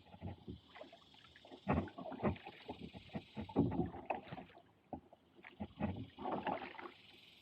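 Lifetime Tioga plastic kayak moving down a shallow creek: irregular knocks, bumps and splashes of paddle strokes against the hull and water, some close together and some with short pauses between.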